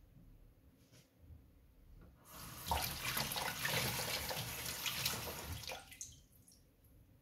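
Water running from a tap for about three and a half seconds, starting a couple of seconds in and stopping fairly abruptly.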